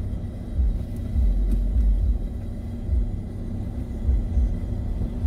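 Low, uneven rumble inside a car's cabin as it crawls in slow, stop-and-go traffic.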